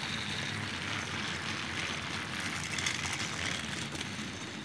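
Battery-powered Thomas the Tank Engine toy train running on plastic track under the load of a long string of cars: a steady whirring of its small motor with the rattle of wheels on the track.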